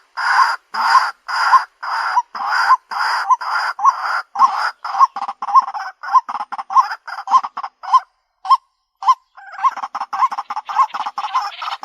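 White-breasted waterhen calling: a long series of loud, harsh repeated notes, at first about two a second, quickening to three or four a second. Past the middle the series breaks off briefly with a couple of lone notes, then starts again fast.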